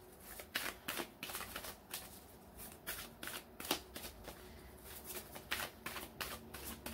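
A deck of reading cards being shuffled by hand: an irregular run of quick, papery flicks and snaps, some louder than others.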